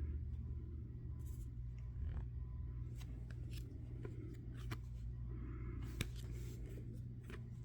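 Trading cards being handled and flipped: a scatter of light clicks and short rustles over a low steady hum.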